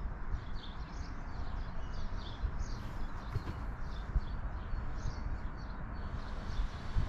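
Small birds chirping over and over in the background, over a low, uneven rumble of wind on the microphone.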